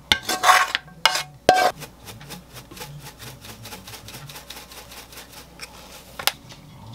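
A frying pan clinking against a ceramic baking dish as spaghetti is tipped in: several sharp, ringing knocks in the first second and a half. Then a run of fast, faint ticks for a few seconds as parsley is sprinkled over the pasta, and one more sharp clink a little after six seconds.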